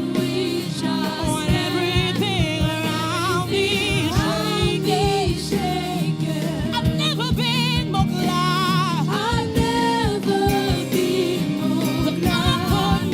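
Gospel worship song performed live: voices singing wavering, sustained melodic lines over a band with bass and a steady drum beat.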